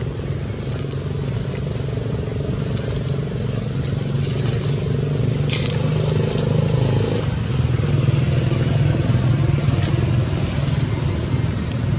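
A motor engine running steadily at an even pitch, with a few short high clicks over it.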